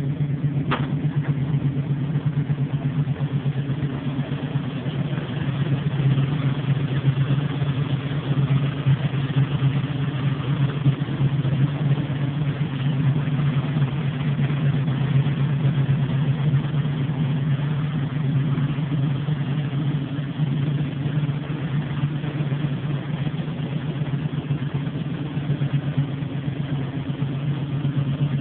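Ford Mustang's small-block V8 idling steadily, with no revving. A short click about a second in.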